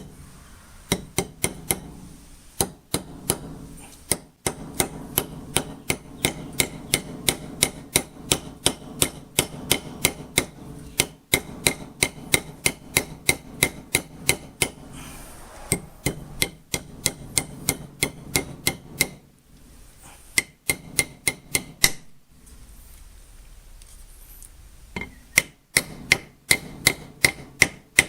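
Hammer tapping on metal vise parts in quick, even strokes, about two or three a second, each with a short metallic ring. The tapping stops for a few seconds about twenty seconds in, then starts again near the end.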